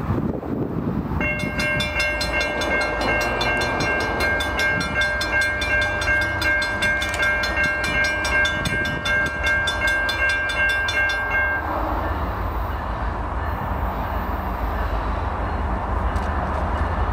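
Railroad grade-crossing bell ringing with fast, evenly repeated dings for about ten seconds, then falling silent, as a train approaches. A low rumble runs underneath.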